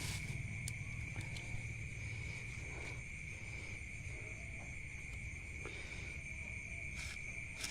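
Night insects chirring in one steady high-pitched drone, over a low rumble with a few faint clicks.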